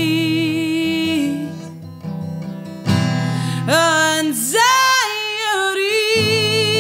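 A singer holding long sung notes over a strummed Yamaha steel-string acoustic guitar. The music drops back briefly about two seconds in, then comes back with a rising vocal line.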